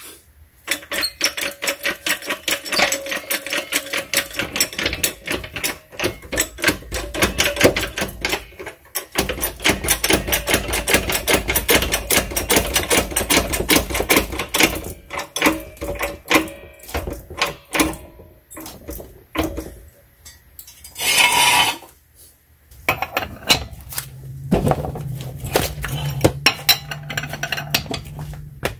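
Socket-wrench ratchet clicking rapidly in long runs with short pauses, as lug nuts on an alloy wheel are worked loose. About three-quarters of the way in comes a short loud rush of noise, and near the end a steady low hum.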